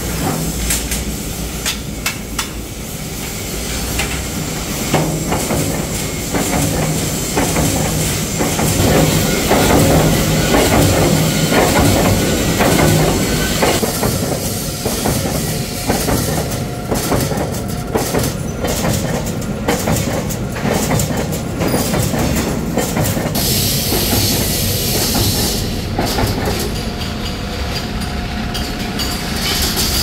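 Flywheel-driven mechanical power press punching slots in galvanized steel sheet as its rollers feed the sheet through: a fast, continuous run of metal strikes over the machine's steady hum. A loud hiss joins in for about two seconds roughly three-quarters of the way through.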